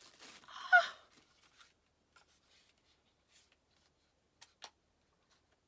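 Packaging being pulled off a new mirrorless camera: a brief loud rustle with a short falling squeak under a second in, then quiet handling of the camera body with two light clicks about four and a half seconds in.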